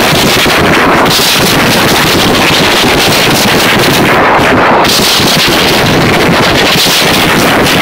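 Very loud live concert sound heard from inside the crowd, overloading the phone's microphone into a constant distorted wash of noise in which no music or voices stand out.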